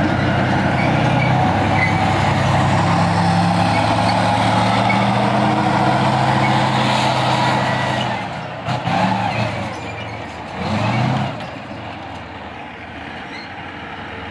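T-72M4 CZ tank's Perkins V12 diesel engine running loud and steady as the tank drives past, then fading as it moves away after about eight seconds, with two short revs, a little past halfway and again about three-quarters through.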